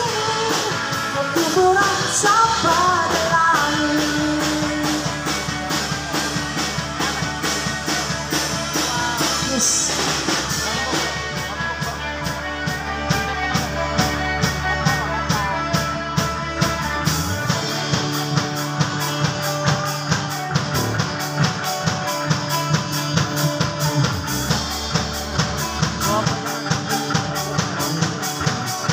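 Live church praise band playing a worship song on electric guitars, bass, keyboard and drums with a steady beat. A woman sings into a microphone in the first few seconds, then the instruments carry on.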